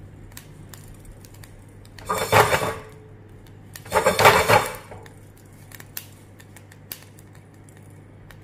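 Fenugreek seeds dry-roasting on a low flame in a non-stick frying pan: two short bursts of the seeds rattling across the pan as they are moved, about two and four seconds in, with faint scattered ticks between.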